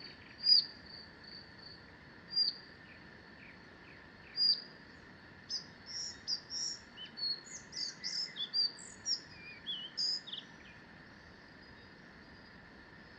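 Forest birds calling: single sharp, down-slurred calls a few seconds apart, then a burst of varied, quick song in the middle, over a steady high pulsing chirp in the background.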